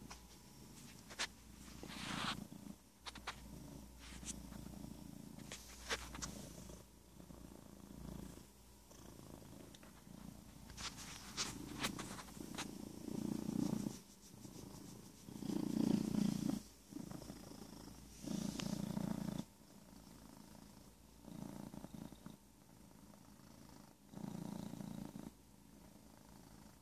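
Domestic cat purring close to the microphone, the purr swelling and fading in waves every two to three seconds with its breathing. A few sharp clicks and rustles come in the first half.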